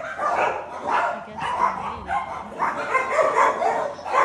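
Dogs barking repeatedly, short barks following each other two or three times a second.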